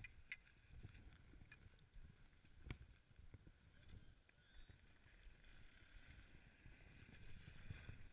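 Faint, muffled rumble of skis sliding over packed snow, with a few sharp clicks.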